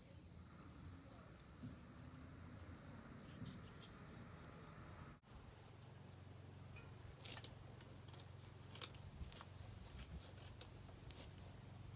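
Faint steady insect trill on one high note for about the first five seconds, cut off suddenly. Then comes a run of faint, irregular short scrapes and clicks from a knife blade shaving hardwood in short strokes.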